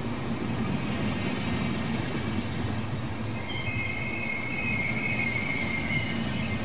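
Trenitalia Vivalto double-deck regional coaches rolling past on curved track with a steady low rumble of wheels on rail. About halfway through, a high-pitched wheel squeal joins in for a couple of seconds, then fades near the end.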